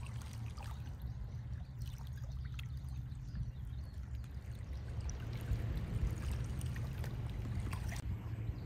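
Faint trickling, lapping water over a steady low rumble, with a few small clicks.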